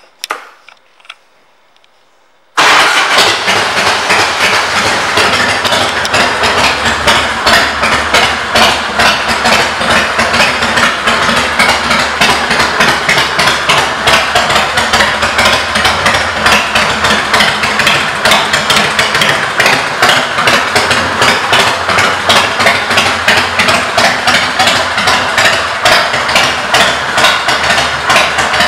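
Harley-Davidson Fat Boy's V-twin engine running steadily through Python aftermarket exhaust pipes, loud, with a fast even pulse. It cuts in suddenly about two and a half seconds in, after near silence.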